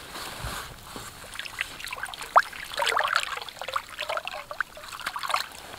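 Water splashing and dripping in an ice-fishing hole as a cusk is released into it and a hand moves in the slushy water. A quick patter of drips and gurgles starts about two seconds in and fades shortly before the end.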